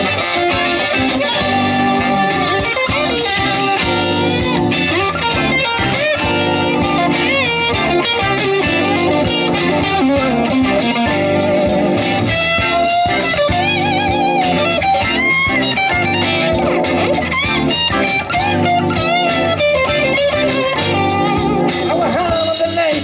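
Live electric blues band playing an instrumental break: an electric guitar leads with wavering, bent notes over bass, drums and keyboards.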